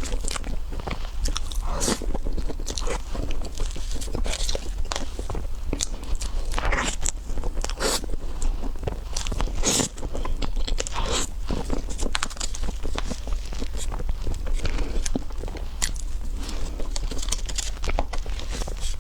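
Close-miked eating of a crunchy chocolate dessert: repeated crisp bites and crunchy chewing, many sharp crunches in quick succession, over a steady low hum.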